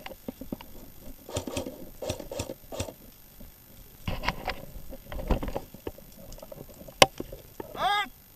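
Irregular rustling, scuffing and low thuds of someone moving on foot, one sharp crack about seven seconds in, and a brief shouted call near the end.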